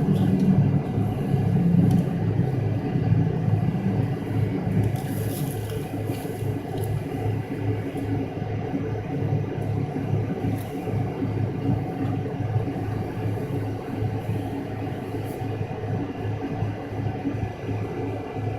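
Cabin drone of an MD-83's rear-mounted Pratt & Whitney JT8D turbofans, heard from a seat near the engines: a steady low hum with a slight throb and a faint high whine.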